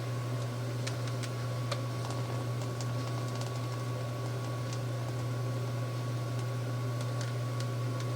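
A steady low hum with a faint high steady tone, and a few faint light ticks scattered through it.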